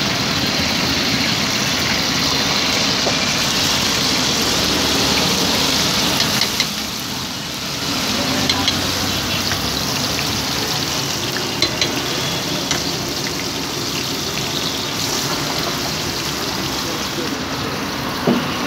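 Paneer cubes and chopped vegetables frying in oil in a steel pan over a gas flame: a steady sizzle, with a few sharp clicks in the second half.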